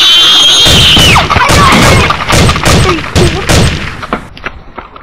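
A child shrieks loudly on one high held pitch for about a second. A quick run of sharp clacks and thumps follows.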